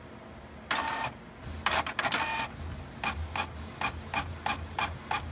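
Desktop printer printing a page: a whir as the paper feeds about a second in, then a quick run of evenly repeated mechanical strokes, about three a second, that cuts off suddenly near the end.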